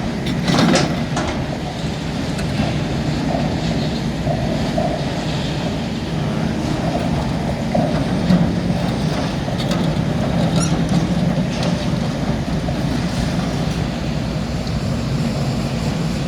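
A crane's engine running steadily under load as it holds and swings an old backhoe, with a few short, sharp metallic sounds about half a second in and again around ten to twelve seconds in.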